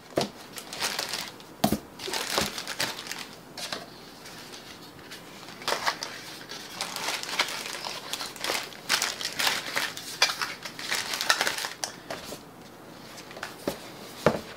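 Cardboard box and packaging being opened and handled, with irregular rustling and crinkling and a few sharp knocks.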